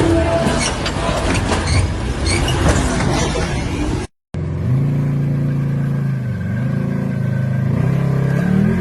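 An off-road 4x4's engine running hard with rough clatter and repeated knocks for about four seconds. After a brief cut, a vehicle engine runs steadily, its pitch stepping up and down a little as the throttle changes.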